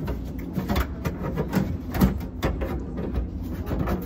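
Irregular metallic clicks and scrapes, a few a second, from a hand tool working at a car's rusted sheet-metal floor pan during floor-pan removal, over a steady low shop hum.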